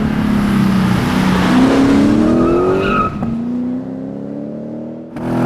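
Lexus RC-F's 5.0-litre V8, fitted with an aftermarket cat-back exhaust, accelerating hard: the revs climb, a gear change comes about three seconds in, and the engine pulls again before fading. Near the end the sound cuts suddenly to the engine revving again, louder.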